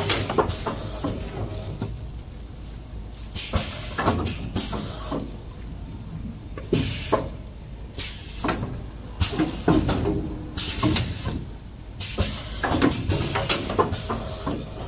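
Clear plastic bags rustling and crinkling in repeated bursts as stacks of kitchen towel rolls are bagged at a packing machine. A steady low machine hum runs underneath.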